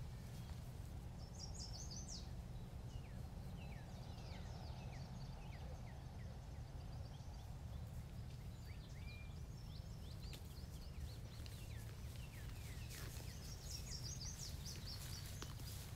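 Wild birds chirping and singing in short calls, scattered and bunched in a few flurries, over a steady low rumble.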